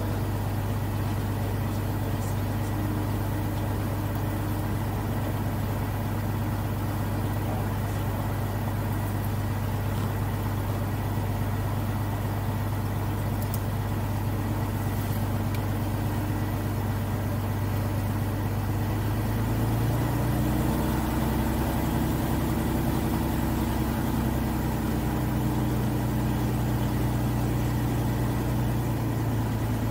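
Zlín 42 light aircraft's piston engine running at a steady pitch. About two-thirds of the way through, the engine note shifts and grows a little louder as the power setting changes, then holds steady.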